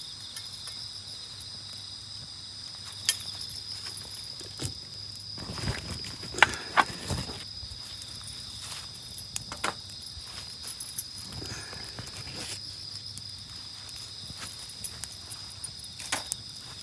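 Night insects trilling steadily at a high pitch, with sharp pops and crackles from a wood campfire scattered through, and a short stretch of rustling about six seconds in.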